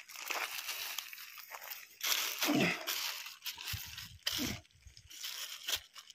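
Rustling and crinkling of a plastic sheet and nylon fishing net being handled as caught snakehead fish are worked out of the mesh, with a few dull thumps in the middle.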